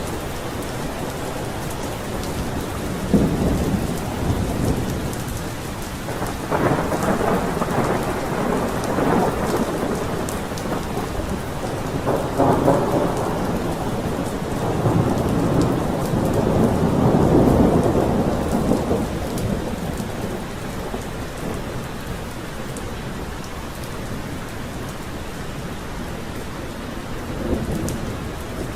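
Steady heavy rain with thunder rumbling and rolling in long swells: a first rumble about three seconds in, the loudest roll in the middle, and a weaker rumble near the end.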